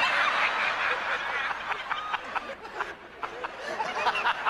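A group of people laughing hard, fullest at the start, then carrying on in short, broken bursts of chuckling and giggling.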